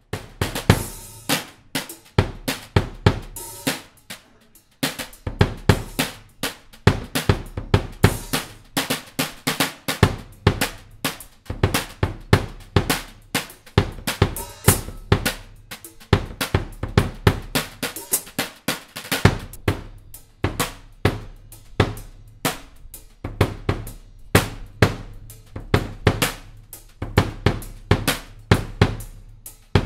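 Drum kit played in a steady groove: a 22"x8" all-maple pancake bass drum kicked with a foot pedal, under snare and cymbal strokes. The playing breaks briefly about four seconds in.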